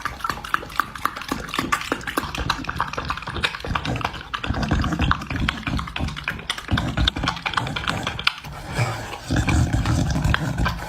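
A dog making agitated noises for the whole stretch, a dense run of rough, irregular sounds.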